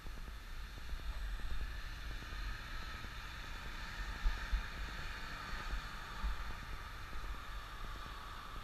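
Road traffic at an intersection: a passing car's tyre and engine noise swells around the middle and fades. Low wind rumble on the microphone runs underneath, with a couple of bumps a little after the middle.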